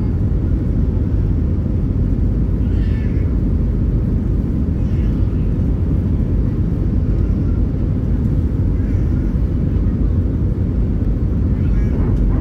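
Airbus A319 cabin noise in descent, heard from a window seat over the wing: a steady deep rumble of its CFM56 engines and the airflow over the fuselage. A few faint, brief higher-pitched sounds rise over it now and then.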